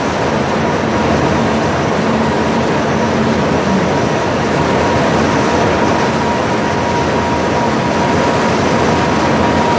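Sumer roller cotton gin running while ginning seed cotton: a steady, loud, dense mechanical clatter with a thin steady whine through it.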